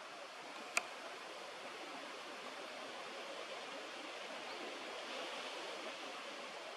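Steady outdoor background hiss with no calls, broken by one sharp click about a second in.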